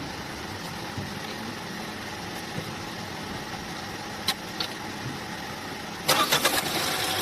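Tata Nexon petrol engine cranked by the starter motor, starting suddenly about six seconds in after a steady low hum, as a spark test on cylinder 2's ignition coil through a spare plug; the coil is suspected shorted.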